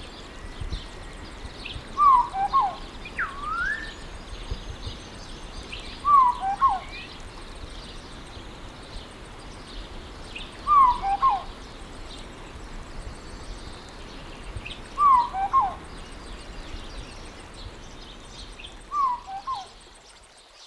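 São Tomé oriole repeating a short phrase of quick, downslurred whistled notes about every four seconds, six times in all, with other birds calling faintly behind.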